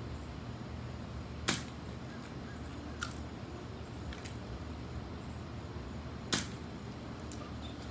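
A few sharp, separate clicks, the loudest about a second and a half in and about six seconds in, over a steady low hum.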